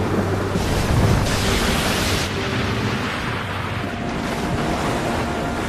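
Storm at sea: a rush of wind and crashing waves against a small boat, swelling loudest about half a second to two seconds in, over a steady low drone.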